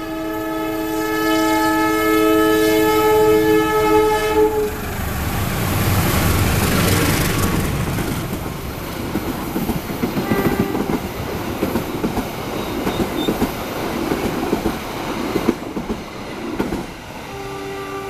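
Passenger train locomotive's horn sounding a long chord of several notes, which stops about five seconds in. The locomotive and coaches then rumble past close by, wheels clacking over the rail joints, and the horn sounds again near the end.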